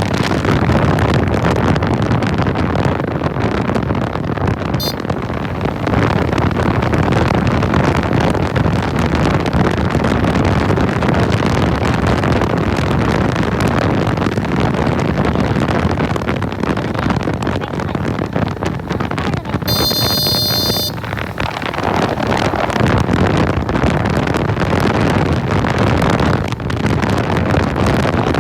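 Suzuki Gixxer SF's single-cylinder engine running under way, with heavy wind rush on the microphone. About two-thirds of the way through, a brief high-pitched ringing tone sounds over it.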